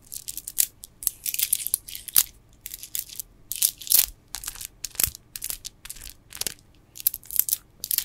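Gemstone bead bracelets on a wrist, handled by fingers so that the stone beads click and rattle against each other, with some rustling. It comes as an uneven, quick run of sharp little clicks.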